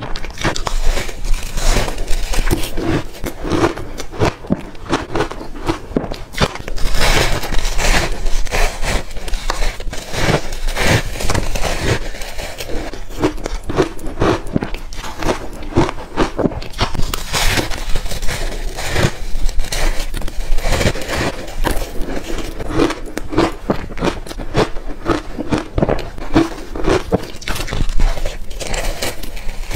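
Close-miked crunching and chewing of frozen, powder-coated coloured ice, with irregular crackly bites and crunches one after another.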